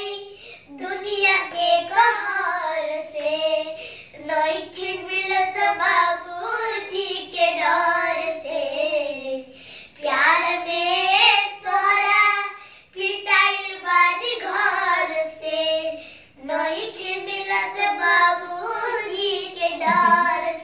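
Two young boys singing a Bhojpuri song without accompaniment, in phrases broken by short pauses for breath.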